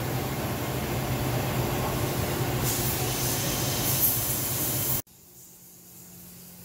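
EMAG VL-3 inverted CNC lathe spindle running at high speed, about 5,000 RPM: a loud, steady hissing whir over a low hum. About five seconds in it cuts off abruptly, leaving a much fainter machine hum.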